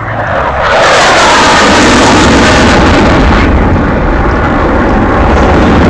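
An aircraft making a fast low pass: a loud roar that swells over the first second, with a whine that falls in pitch as it goes by. After about three and a half seconds the hiss drops away and the low rumble carries on.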